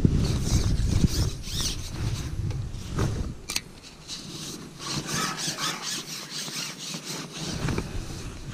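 Carbon fishing pole being shipped back, its sections squeaking and rubbing as they slide over the pole rest and through the hands. Wind buffets the microphone for the first few seconds.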